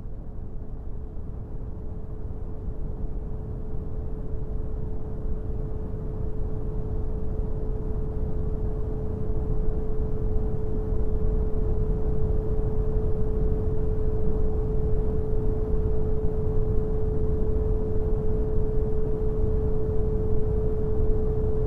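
Brown noise, a deep hiss weighted to the low end, with a steady pure 432 Hz tone held over it. It fades in, growing louder over the first ten seconds or so, then holds level.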